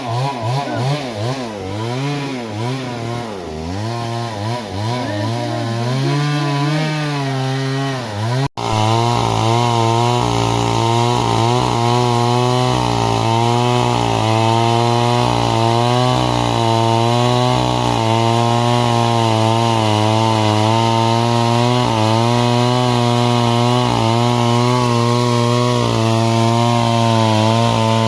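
Stihl MS 382 two-stroke chainsaw running under load while cutting wood, its engine pitch rising and falling as the bar works through the timber. It cuts out suddenly for an instant about eight seconds in, then runs on at a steadier pitch.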